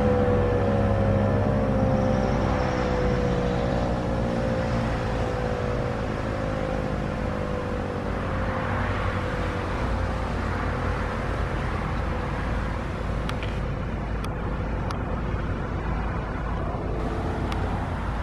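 ASC T-128 electromechanical rotating siren winding down at the end of its Alert-tone test, its pitch sliding slowly downward and fading away over about the first half. A steady low rumble continues underneath.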